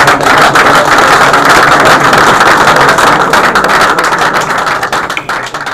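A roomful of people applauding: dense, loud clapping that thins out and dies away near the end.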